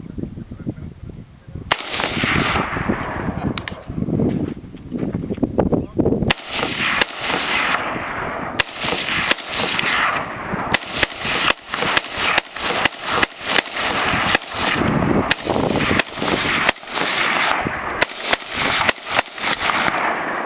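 AK-47 rifle (7.62×39 mm) firing a long string of shots. The first shot comes about two seconds in and a few follow slowly, then they come in quick succession, fractions of a second apart and irregularly spaced. Each crack trails a long echo.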